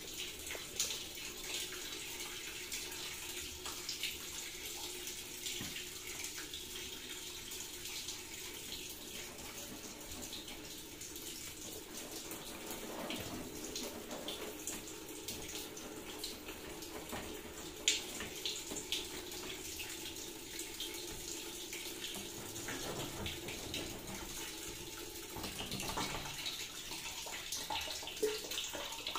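Steady rushing noise with scattered light clicks and taps as hands press and adjust a plastic cover plate on a PVC door.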